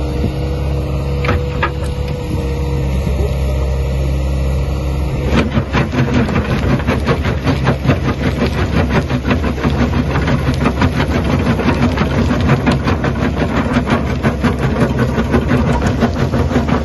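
Excavator and crusher-bucket hydraulics running with a steady hum. About five seconds in, the Xcentric XC8 crusher bucket's jaw starts working, and a fast, continuous rattling and crunching follows as it crushes demolition concrete.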